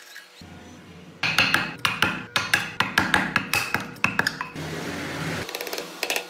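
A metal hand tool working the wooden body of a model car. It makes a quick run of sharp, ringing strokes, about five a second, then about a second of steady scraping, then a few quick light ticks near the end.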